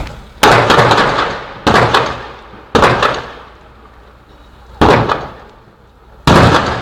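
A series of explosions: five loud, sharp bangs at uneven gaps of one to two seconds, each followed by a rolling echo that dies away over about a second.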